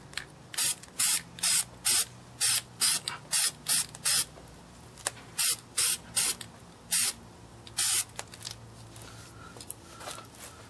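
Aerosol spray paint can sprayed in short bursts through a mesh stencil: about fourteen quick hisses over the first eight seconds, then it stops.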